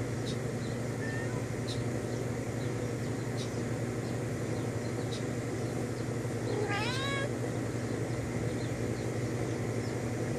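A domestic cat meows once, about two-thirds of the way through: a single call under a second long that rises and then falls in pitch. A steady low hum runs underneath.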